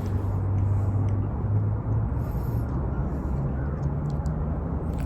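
A low engine hum over a steady rumble, its pitch rising a little about halfway through, with a few faint clicks.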